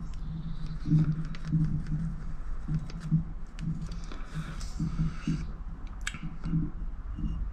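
Small clicks and handling noises of fingers on a plastic adhesive bottle and a cast-iron handwheel, with a sharper click about six seconds in, over a low hum that comes and goes.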